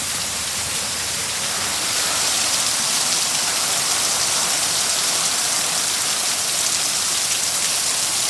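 Heavy downpour: torrential rain pouring down in a steady hiss, getting a little louder about two seconds in.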